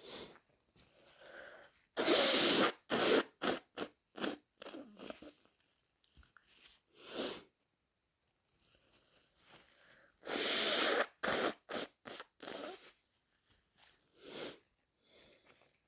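A person with a head cold blowing a congested nose: two long, forceful blows, about two seconds in and again about ten seconds in, each followed by a quick string of short blows.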